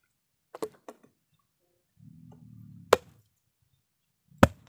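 Machete chopping into a young green coconut: a few light taps, then two sharp chopping strikes about a second and a half apart, the second the loudest.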